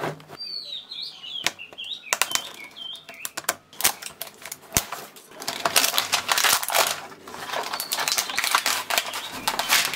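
Clear plastic shrink-wrap being picked at, peeled and torn off a cardboard paint box, crinkling and crackling irregularly, busiest in the second half.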